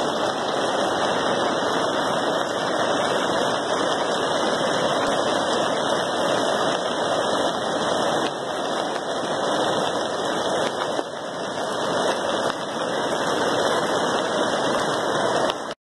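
Steady rushing noise of water from floodwater and a river that has overflowed its banks.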